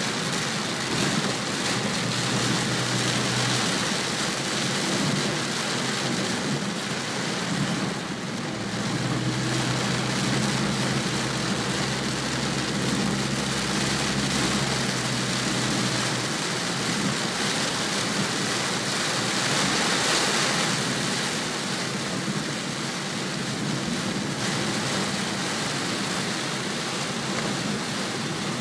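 Heavy rain hitting a moving car's windshield and roof, heard from inside the cabin, over the steady running of the car. The noise stays steady throughout.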